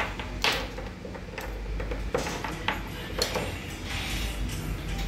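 Scattered sharp clicks and light clinks from hand tools and the laptop's plastic case being handled on a desk, about half a dozen over a few seconds, over a low steady hum.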